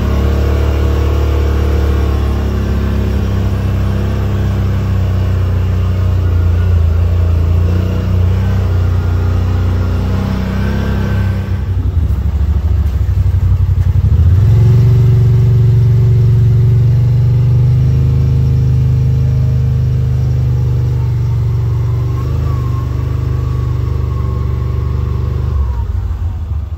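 Yamaha RMAX side-by-side's engine running under way, easing off briefly around the middle and then pulling louder.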